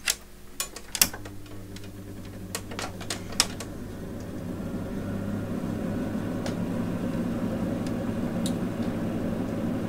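Multimeter probe tips clicking and scraping against test points on a circuit board, several sharp clicks in the first few seconds. A steady low electrical hum starts about a second in, grows louder over the next few seconds, then holds.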